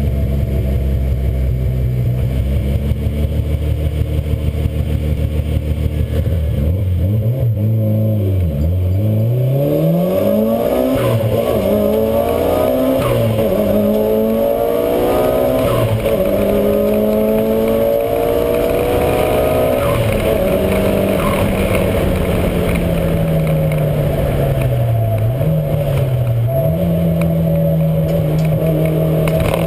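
Mitsubishi Lancer Evolution V's turbocharged 2.0-litre four-cylinder engine running hard. The revs climb and drop several times as it shifts gears, dip and recover twice, and hold steady for stretches at the start and near the end.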